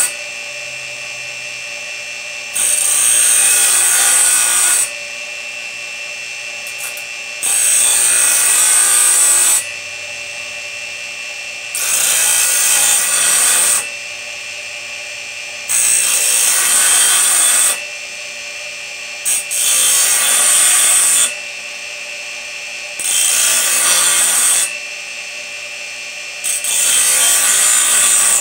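Bench grinder running steadily as its wheel grinds the teeth of a steel sawmill bandsaw blade. There are seven grinding passes of about two seconds each, roughly every four seconds, with the motor's steady whine between them as the blade is moved on to the next tooth.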